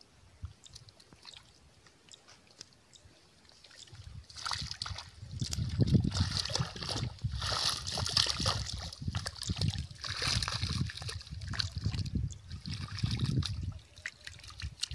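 Shallow water splashing and sloshing as a fishing net with small fish in it is hauled through it. There are only faint small splashes for the first few seconds, then louder, continuous splashing from about four seconds in.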